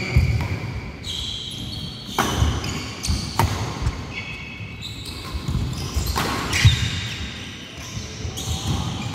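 Badminton doubles rally: several sharp racket strikes on a nylon shuttlecock, with shoes squeaking and feet thudding on a wooden court floor.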